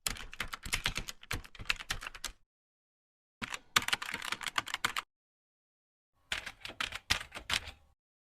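Rapid key clicks like typing, in three bursts of about two seconds each, with dead silence between them.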